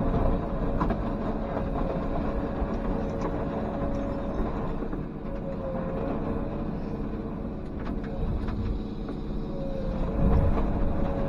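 Komatsu PC210 hydraulic excavator's diesel engine running steadily under working load, with a steady whine over it and scattered knocks and cracks as the mobile home's structure is broken up.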